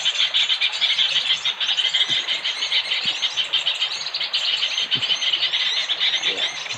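Birds chirping and twittering in a dense, rapid, continuous chorus of high-pitched notes.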